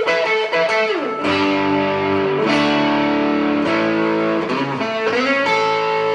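Electric guitar, a 1970-71 Epiphone ET270 with 1960s EKO pickups, neck and bridge pickups wired in series, played through a 5F4 amplifier with light compression, digital reverb and AC booster overdrive. It plays held, ringing notes and chords with a few sliding pitch changes between them.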